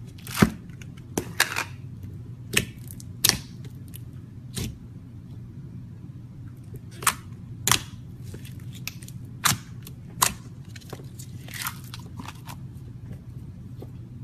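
Slime being squeezed and worked by hand, trapped air popping in sharp, irregular clicks, over a steady low hum.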